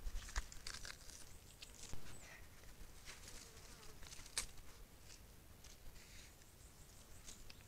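Faint, scattered crackling and rustling of dry leaves, with one sharper crack about halfway through.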